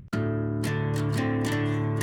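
Background music led by a strummed acoustic guitar, starting just after a brief silence, with a steady strumming rhythm.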